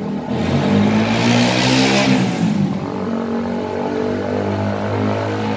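Roadside traffic: a motor vehicle's engine running steadily nearby, with the hiss of a vehicle passing that swells and fades about two seconds in.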